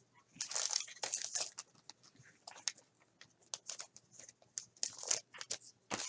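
Crinkling and tearing of a pack wrapper as a pack of 2007 Elite Extra trading cards is opened, densest in the first second and a half, followed by short scattered rustles as the cards are handled.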